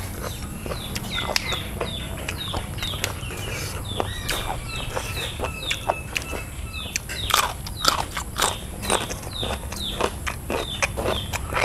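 Close-up eating sounds of babylon sea snails being sucked and chewed: a quick run of wet clicks and smacks, two or three a second, getting louder and denser about seven seconds in.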